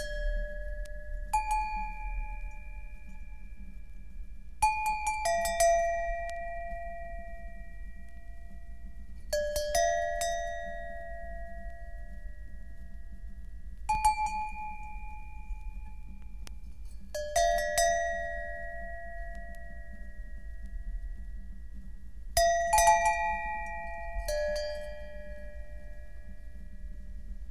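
Slow ambient music: sparse bell-like struck notes, each a low and a high tone together, ringing out and fading over several seconds, with a new note every four to five seconds over a steady low hum.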